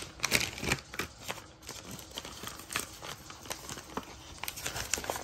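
Brown paper mailer crinkling and rustling in the hands as it is opened and a book is slid out, a run of irregular crackles.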